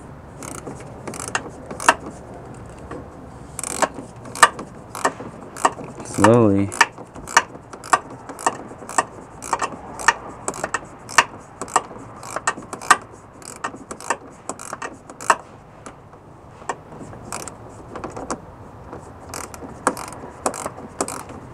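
Headlight aiming adjuster on a 2005 Toyota Camry being turned with an 8 mm ratcheting wrench: a run of sharp, irregular clicks, about one or two a second.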